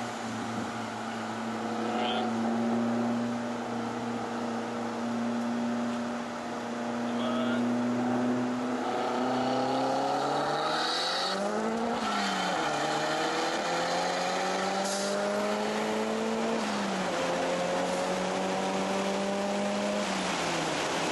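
Nissan S13 Silvia's engine heard from inside the cabin, running at steady revs at first, then climbing in pitch as the car accelerates, with a few sudden drops where the gear changes.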